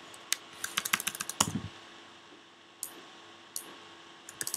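Computer keyboard typing: a quick run of key clicks between about half a second and a second and a half in, with one heavier thump among them, then a few scattered key presses near the end.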